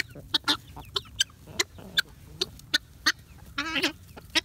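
Chickens clucking while they feed: a quick run of short, sharp clucks, a few each second, with one longer warbling call about three and a half seconds in.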